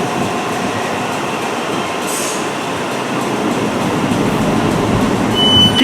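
A Southern passenger train moving along the platform, a steady noise of wheels on rail and running gear, with a short hiss about two seconds in. A brief high tone sounds near the end.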